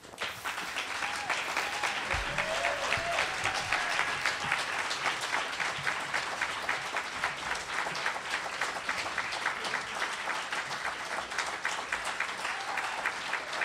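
Audience applauding: the clapping breaks out suddenly and goes on steadily.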